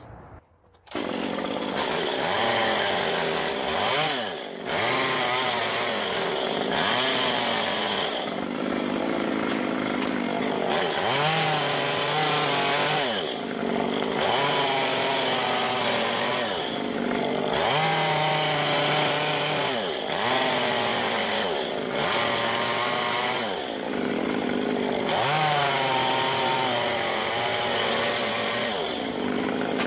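Stihl MS 193 two-stroke chainsaw with a carving bar cutting the stripe grooves of a pumpkin into a log. It starts about a second in and runs at high revs, its pitch dipping and recovering every couple of seconds as the chain bites into the wood and is eased off.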